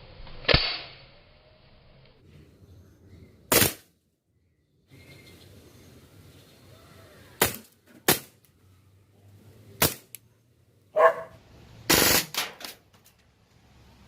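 4.5 mm CO2-powered Beretta 92-style air pistol firing single shots: about seven sharp pops at irregular intervals, a couple of them followed by a short ring.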